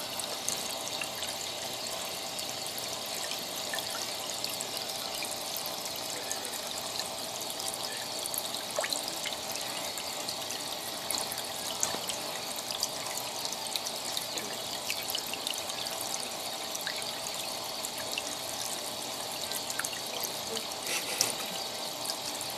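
Aquarium water trickling and splashing steadily at the churned surface, with faint small ticks scattered through it.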